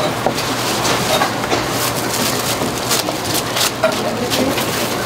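Kitchen knife chopping sundae on a cutting board: sharp, irregular strokes a few times a second, with plastic wrap crinkling and a steady low hum behind.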